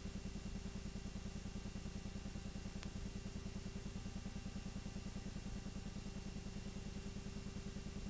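Film projector running: a steady, rapid mechanical clatter of about nine beats a second over a constant low hum.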